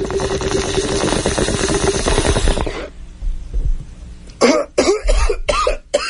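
A bong hit: water bubbling rapidly in a bong with a steady hum over it, stopping about three seconds in. A couple of seconds later come a few coughs.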